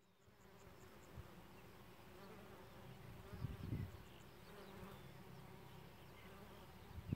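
Honeybees buzzing faintly and steadily as they forage on flowering lavender, with a soft low thump about halfway through.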